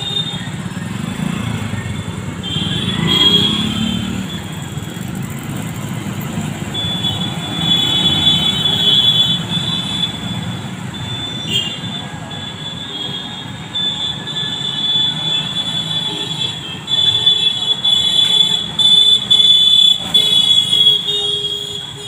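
Night street traffic of motorcycles and scooters passing close by, their engines rumbling and swelling as each goes past. A steady, high-pitched shrill note sits above the traffic noise.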